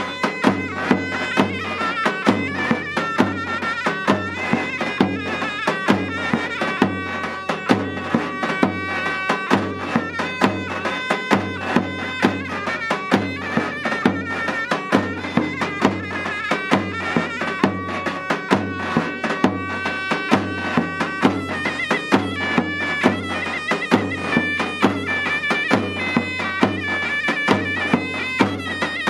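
Davul and zurna playing a Turkish folk tune: the zurna's reedy melody over a regular beat of strokes on the big bass drum.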